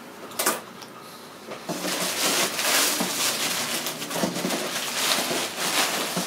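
Plastic sheeting and cardboard packaging rustling and crinkling as hands move things about in a cardboard box, with a short sharp click about half a second in.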